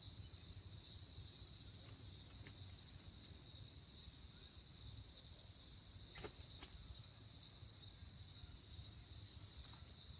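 Faint, steady, high-pitched insect trill holding one pitch, with a few soft clicks about six seconds in.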